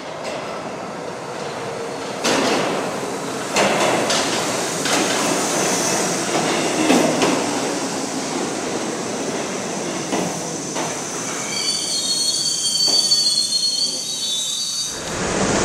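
Subway train pulling into an underground station: rumbling with sharp clacks as the wheels cross rail joints. A high wheel squeal comes in as it slows to a stop near the end.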